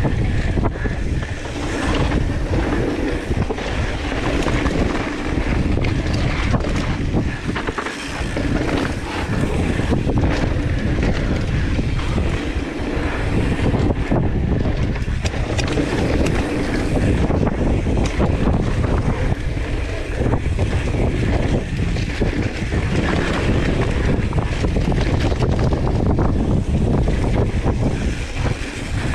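Wind rushing over a GoPro's microphone as a mountain bike descends a dirt downhill trail, with the tyres rumbling on the dirt and frequent knocks and rattles from the bike over bumps.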